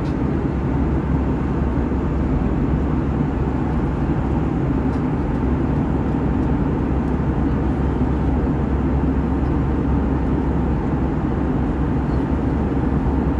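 Steady cabin noise of an Airbus A320 in flight: an even low rush of engines and airflow with a constant hum underneath, holding level throughout.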